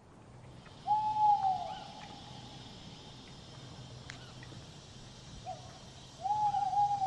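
An owl hooting twice, each a drawn-out single-pitched hoot of about a second that drops off at the end, over a faint steady night-time hiss.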